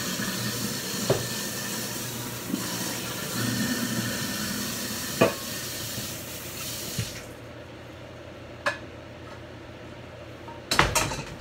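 Kitchen noise: a steady hiss that cuts off abruptly about seven seconds in, with a few light clicks, then a louder clatter of dishes near the end.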